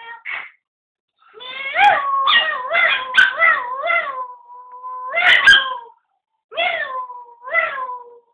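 Chihuahua howling in a run of wavering, yowl-like cries, some notes held steady, then two shorter cries near the end after a brief pause.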